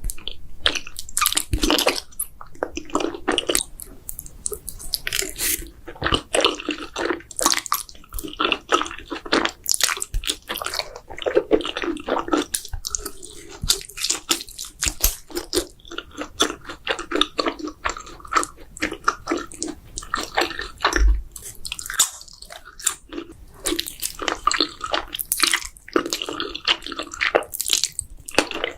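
Close-miked mouth sounds of someone eating buldak spicy noodles and mozzarella sticks: continuous biting and chewing, with many quick sharp clicks mixed with wet sounds.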